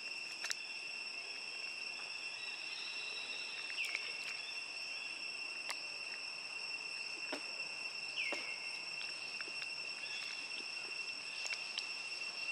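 Steady, high-pitched drone of insects, unbroken and even in pitch, with a few short clicks and two brief falling chirps over it.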